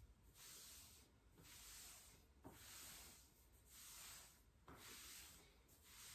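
Faint rhythmic swishing of hands rubbing briskly along the thigh in a self-massage, about one stroke a second.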